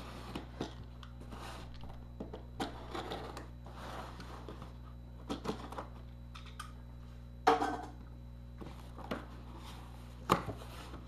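A cardboard shipping box being opened and handled: irregular scrapes, rustles and knocks of cardboard and packaging, the loudest about seven and a half seconds in, over a steady low hum.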